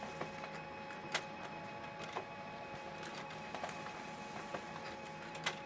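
Printer running faintly: a steady low hum with a few scattered short clicks about a second apart.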